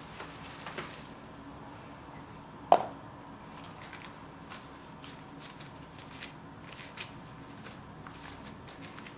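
Banknotes and paper being handled on a table: soft rustles and small clicks, with one sharper knock a little under three seconds in.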